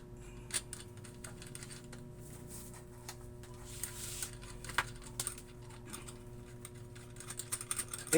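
Light clicks and taps of small metal parts, the transformer's iron plates and bolts, being handled and fitted by hand, over a steady low hum.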